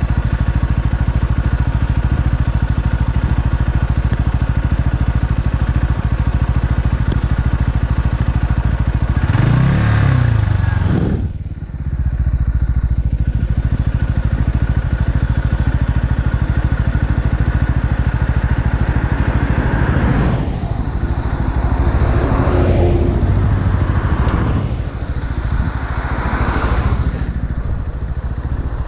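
Motron Revolver 125cc motorcycle engine running steadily, with the revs rising briefly about a third of the way in and twice more in the second half.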